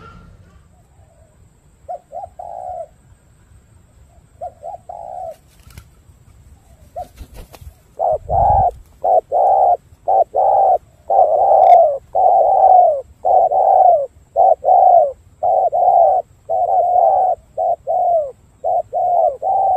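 Spotted dove cooing: a few short, soft coos, then from about eight seconds in a fast, unbroken run of repeated coo notes, the rolling "rù" coo. A low thump comes about eight and a half seconds in.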